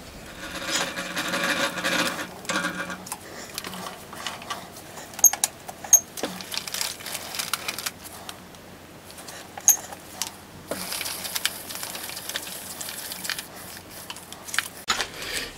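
Milling machine table handwheels turned by hand in small steps, with soft mechanical clicks and ticks from the handwheels and feed screws as the table is positioned under a centering scope. A few sharper clicks stand out around five to six seconds in and again near ten seconds.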